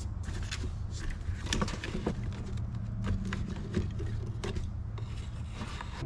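Old paint and glue, softened with stripper, being scraped off a boat with a hand scraper: irregular rasping scrape strokes over a steady low hum.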